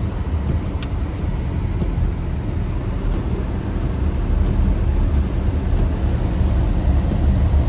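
Steady low rumble of a car driving, road and engine noise heard from inside the cabin, with one faint tick about a second in.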